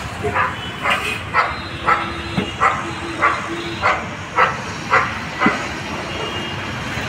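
A dog barking repeatedly, about a dozen sharp barks at roughly two a second, stopping about five and a half seconds in.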